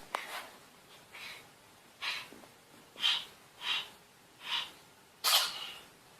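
A cat sneezing over and over: about seven short sneezes in a row, a second or less apart, the last one the loudest.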